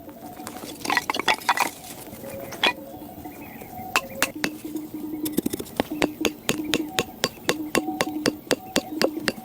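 Light, sharp clinking taps of a hard object on a hard object: a few scattered at first, then a quick run of about three to four taps a second from about four seconds in.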